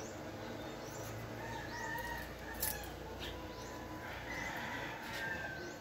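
Chickens and roosters: a rooster crowing faintly and hens clucking, with short, high chirps repeating throughout. A single sharp click about two and a half seconds in.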